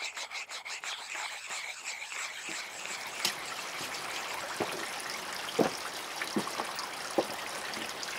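A thin stream of water trickling over rocks into a shallow pool, with now and then a drip plopping.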